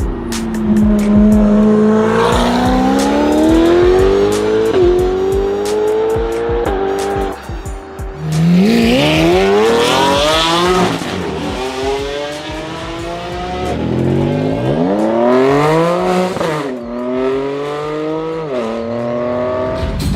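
A modified Japanese performance car's engine accelerating hard through the gears, the pitch climbing and then dropping back at each gear change, several times over.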